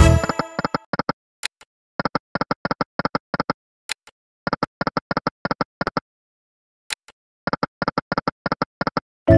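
EGT 'Lucky and Wild' video slot game sounds. Quick runs of short, identical electronic clicks follow one another, one run of clicks per spin as the reels stop in turn. A short chime fades out at the start, and a loud win jingle starts right at the end.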